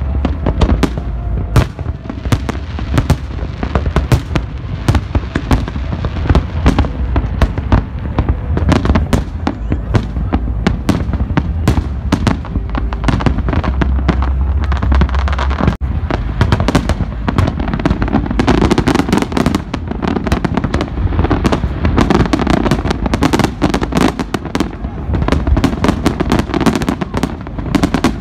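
Fireworks display: aerial shells bursting in a rapid, continuous barrage of bangs over a deep rumble, the bangs coming thicker about two-thirds of the way through.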